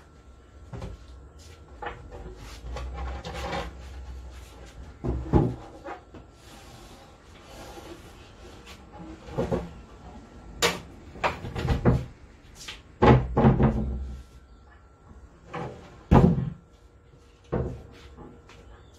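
Wooden board being handled and set down on a wooden plank floor: irregular knocks and thumps of wood on wood, with stretches of scraping in the first half and the loudest thumps in the second half.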